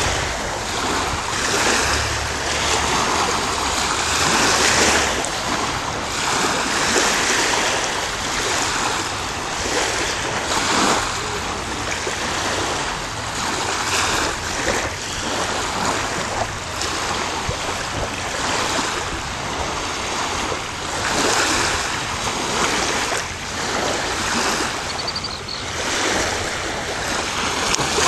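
Small lake waves washing against the shore in irregular swells, with wind blowing across the microphone.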